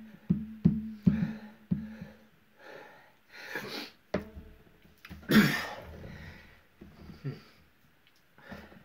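A man breathing hard through the burn of a just-eaten HP22B super-hot chili pepper, with one loud, sharp burst of breath about five seconds in. A few short knocks come in the first two seconds.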